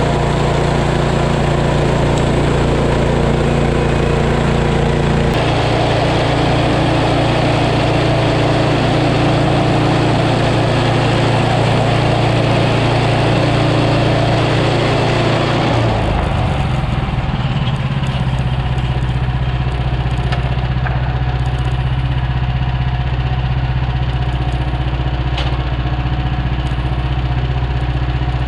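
Gas engine of a portable bandsaw mill running steadily. About five seconds in, a denser rushing noise joins it, as of the blade cutting through a log. About sixteen seconds in, the engine note shifts and the cutting noise falls away.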